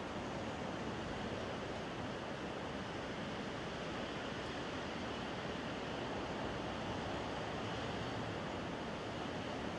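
Wind blowing in a steady, unbroken rush.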